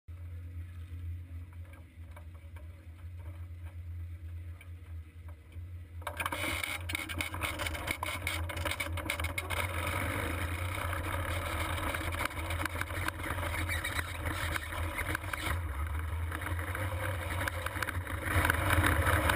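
Sprint car engine idling with a steady low rumble, heard through the onboard camera. About six seconds in, a hiss with crackle joins it, and near the end the sound grows louder as the car starts to roll.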